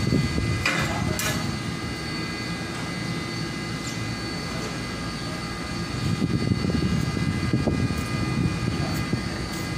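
Steady machine drone with a thin high whine over it, and two brief hissing noises about a second in; the drone gets somewhat louder after about six seconds.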